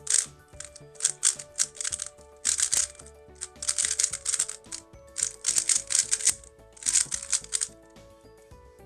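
QiYi WuWei M 3x3 speedcube being turned fast, its hard plastic pieces clacking in quick bursts of turns that stop about a second before the end. Background music plays underneath.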